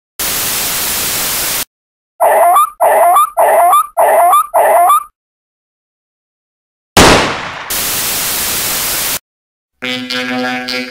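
A burst of static-like white noise, then a dog barking five times in quick succession, each bark rising in pitch. About seven seconds in comes a sudden loud hit that fades into another stretch of static hiss, and music with a steady droning tone starts near the end.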